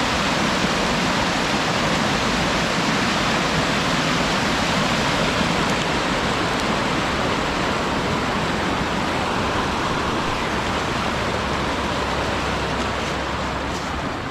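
Water rushing steadily down a rock-lined dam spillway, carrying a small flood overflow. It eases off slightly near the end.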